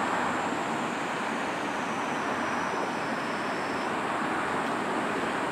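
Steady wash of distant road traffic noise, with faint high steady tones above it, one of which stops about four seconds in.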